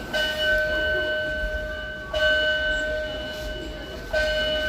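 Fire alarm sounding: a loud, steady multi-tone note that starts afresh about every two seconds, fading slightly before each restart, over the low rumble of a large hall.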